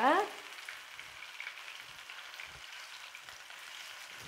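Masala-coated barracuda pieces shallow-frying in hot oil in a pan: a steady sizzle with faint scattered crackles.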